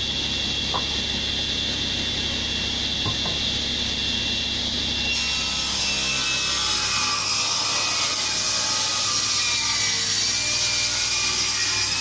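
Table saw running, then about five seconds in its blade starts ripping a pine board lengthwise; the pitch of the cut sags slightly under load and the cut carries on to the end.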